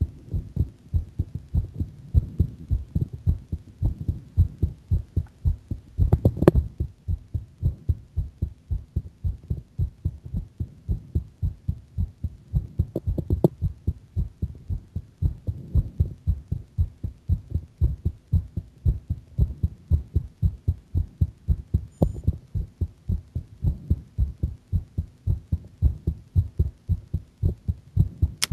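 A girl's heartbeat heard close up, beating a little fast in a quick, steady rhythm of low thumps. There is a brief louder noise about six seconds in and again about thirteen seconds in.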